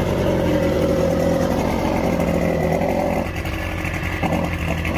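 Mercury two-stroke outboard engine running steadily at idle with its cowling off, after its carburetor floats have been set.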